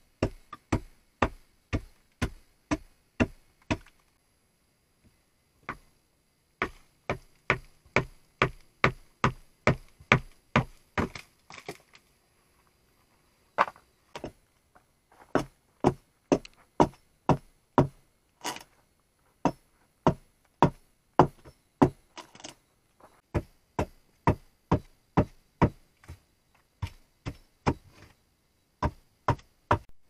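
Hammering on wood: quick, sharp blows, about two or three a second, in runs broken by short pauses, like nails being driven into the log frame.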